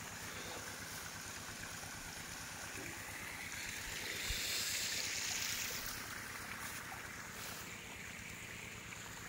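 Steady hiss of flowing river water, swelling louder for about two seconds midway.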